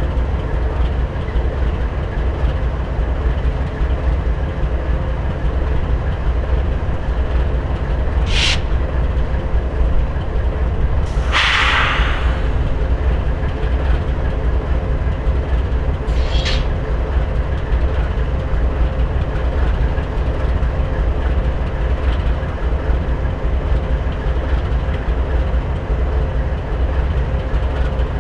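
GE diesel locomotives idling with a steady low drone. Three short hisses of air come from the locomotives a third, two fifths and three fifths of the way through. The middle hiss is the longest and loudest.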